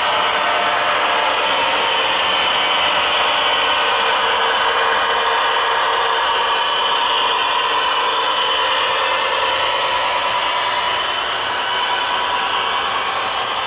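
HO scale model train running on the layout, a steady mechanical whine made of several held tones that eases off slightly near the end.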